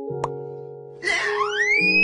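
Edited-in music: a held chord with a single click, then a loud wailing tone that slides upward from about halfway through.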